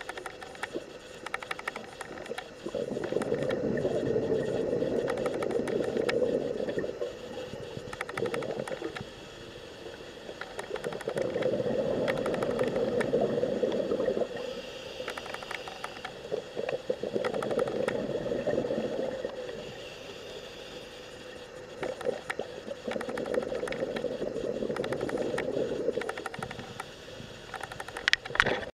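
A scuba diver breathing through a regulator underwater: four long, low rushes of exhaled bubbles, each about three to four seconds, come every five to six seconds, with a fainter hiss of inhalation between some of them. Scattered sharp clicks run throughout.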